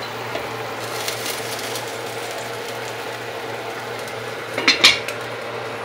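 Aluminium pot lid handled over a pot of simmering curry, clattering twice against the pot about three-quarters of the way through, over a steady background hum.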